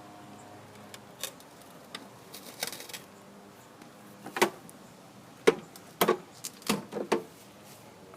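Knocks and clunks of a walk-behind lawn mower being handled and set back down on its wheels: light rattles first, then about five sharp metal-and-plastic knocks in the second half.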